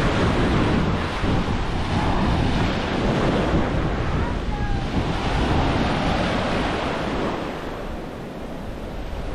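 Sea surf washing onto a beach, with wind buffeting the microphone in a heavy low rumble that eases a little near the end.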